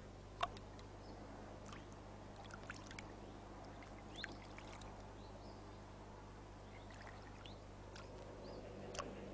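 Faint small splashes and drips in shallow marsh water, with a few short high chirps and a sharp click about half a second in, over a steady low hum.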